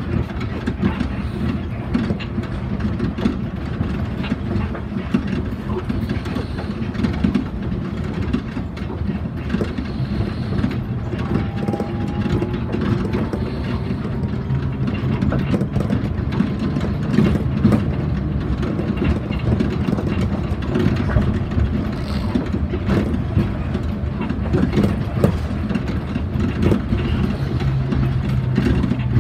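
Rubber-tyred people-mover train running along a concrete guideway, heard from inside the front cab: a steady rumble with frequent clicks and knocks as it passes over the guideway.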